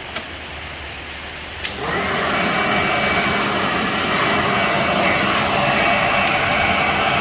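Ryobi 800 W electric blower-vacuum switched on with a click about a second and a half in. Its motor spins up within a fraction of a second into a steady whooshing whir, with a faint high tone running through it.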